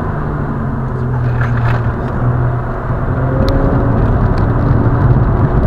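Car engine and road noise heard from inside the cabin on a circuit lap. The engine note sinks slightly at first, then the sound grows louder through the second half as the car drives on out of a bend.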